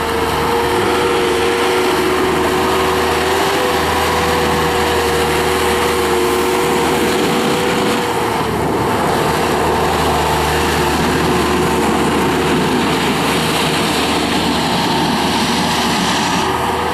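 1998 Bobcat 863 skid steer's 73 hp oil-cooled Deutz turbo diesel running while the machine is put through its paces, with a steady whine over the engine that drops out about eight seconds in and returns near the end.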